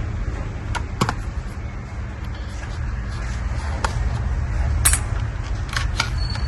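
A handful of light, scattered clicks and taps, like small hard parts being handled, over a steady low hum.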